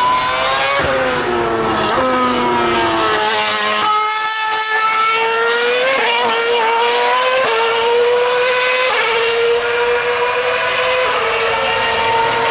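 A 2013 Formula One car's 2.4-litre V8 running at high revs on track. In the first few seconds the pitch sags and then jumps up several times as it shifts down; from about six seconds in the pitch climbs and drops back in steps as it shifts up and accelerates away.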